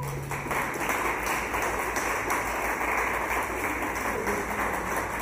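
Audience applauding: a roomful of people clapping.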